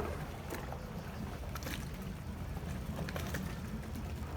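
A boat's engine running steadily with a low hum, with a few light knocks and clicks.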